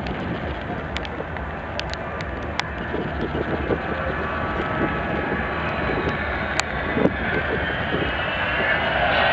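Avro Vulcan's four Olympus jet engines, a steady rumble with a whine coming through about halfway, growing louder as the bomber approaches. Short clicks are scattered through it.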